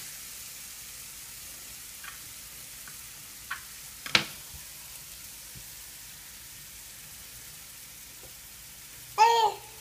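Mushrooms sautéing in a pan, a steady sizzle. There are a few light taps and one sharp knock about four seconds in. Near the end a baby makes a short high-pitched vocal sound.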